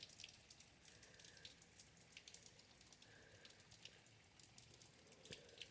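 Faint rain heard through a closed door: a soft steady hiss with scattered drips and taps.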